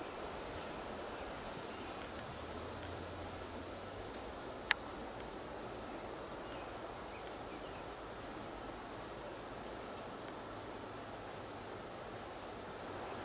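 Outdoor ambience: a steady, even rustling hiss with faint, short, very high chirps every second or two from a small bird or insect. A single sharp click about four and a half seconds in.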